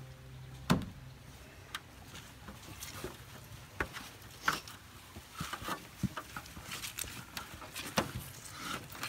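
Greenhouse plastic sheeting rustling and crinkling as it is pulled and handled, with scattered sharp clicks and knocks from the snap clips and frame, the loudest a thud under a second in.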